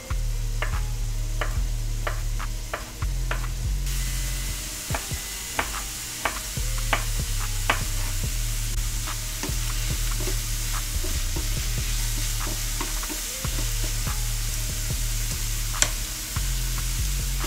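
Onions sautéing in oil in a frying pan, sizzling steadily and a little louder from about four seconds in, with irregular light taps and clicks of a utensil throughout.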